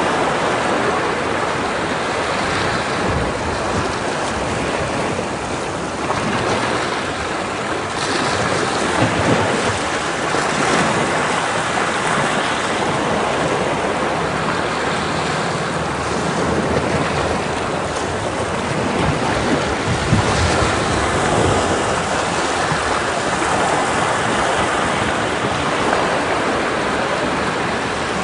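Ocean waves breaking against rocks: a continuous rush of surf that swells and eases every few seconds.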